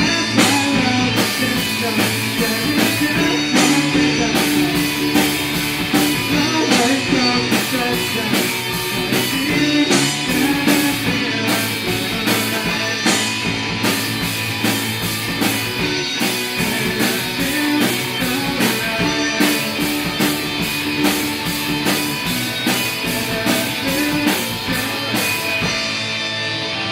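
A band playing a rock song: drum kit keeping a steady beat under guitars, with held melody notes. Near the end the cymbals drop away, leaving mostly strummed guitar.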